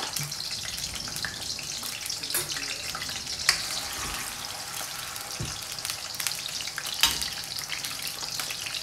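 Cubed potatoes deep-frying in hot oil in a black iron wok (kadhai), a steady dense sizzle. A spoon stirs them, and two sharp clicks, about three and a half and seven seconds in, are the spoon knocking the pan.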